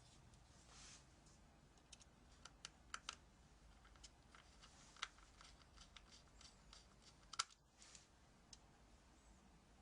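Faint, scattered clicks and light taps of a hard drive caddy and cable being handled and fitted into a laptop's second drive bay, with one sharper click about seven seconds in.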